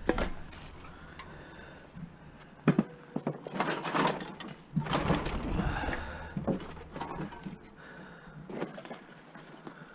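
Scrap being handled and moved about: scattered knocks, clunks and scraping, with the busiest clatter a few seconds in.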